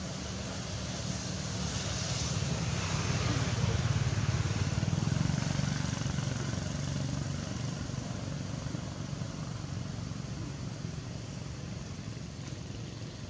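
Steady low engine-like rumble with a hiss over it, swelling to its loudest a few seconds in and then easing off.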